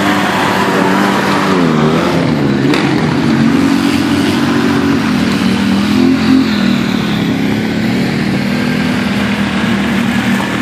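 ATV (quad bike) engines running hard through deep mud, the pitch rising and falling as the throttle is worked, with a pronounced rev swing about two seconds in and another about six seconds in.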